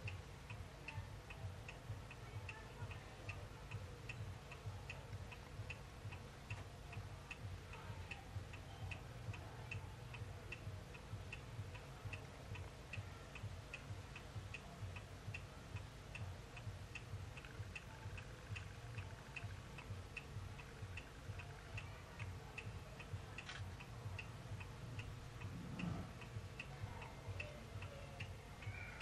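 Steady, even ticking, a little over two ticks a second, over a faint hum, with a sharp click and then a soft low thump near the end.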